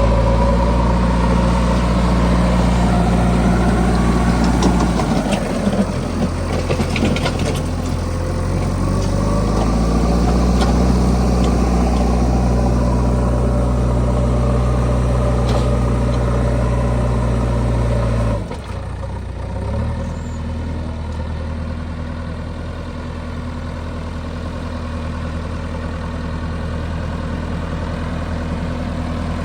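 Diesel engine of a JCB 3DX backhoe loader running steadily under load, easing off briefly about five seconds in and then dropping to a lower, quieter speed about eighteen seconds in. A few light knocks come around six to eight seconds in.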